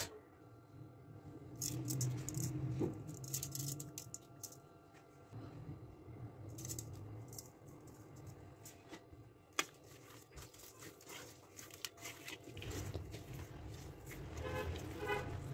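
Raw chicken pieces being seasoned and mixed by hand in a steel bowl: soft wet rubbing and squishing of the meat, with scattered light clicks and knocks against the steel.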